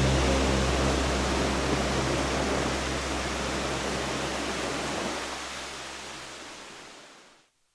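Waterfall rushing: a steady hiss of falling water that fades out near the end, with low sustained music tones underneath that die away a second or so earlier.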